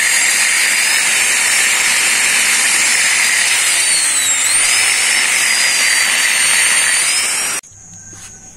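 Handheld angle grinder running at full speed, grinding old grout out of the joints between stone paving slabs. Its high whine dips and recovers a few times as the disc bites into the joint, then it cuts off suddenly near the end.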